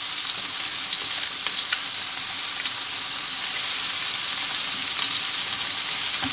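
Chicken pieces searing in hot avocado oil in a roaster pan: a steady high sizzle with scattered small pops and crackles as the meat browns.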